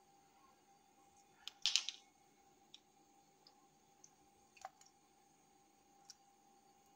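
Light clicks and a brief scrape from a small knife and miniature steel utensils handled on a stone countertop while a small fish is cut into pieces. The loudest is a short scrape-and-click cluster about two seconds in, followed by a few single faint clicks, over a faint steady hum.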